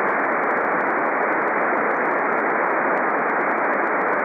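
Steady hiss of the 23 cm SSB receiver with no signal coming through, cut off sharply above the voice band. It is the band noise heard on receive between transmissions of an Earth–Moon–Earth contact.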